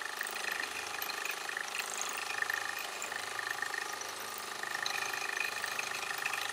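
Gammill longarm quilting machine running and stitching freehand through the quilt layers: a steady mechanical hum and whir of the motor and needle.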